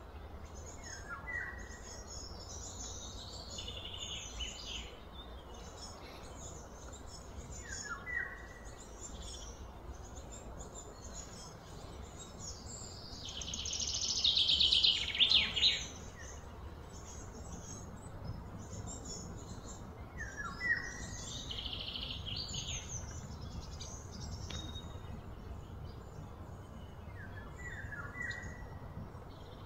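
Outdoor ambience of birds calling: a short falling call repeats about every seven seconds among scattered high chirps, with a louder stretch of rapid high chirring about halfway through, over a steady low rumble.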